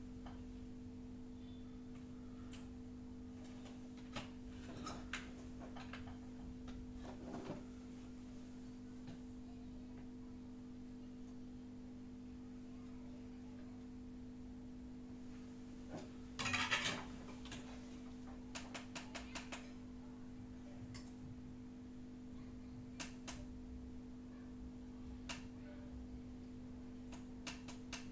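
Light clicks and clatter of small tools and parts being handled on a workbench over a steady electrical hum, with a short louder scrape about two-thirds of the way through followed by a run of quick clicks.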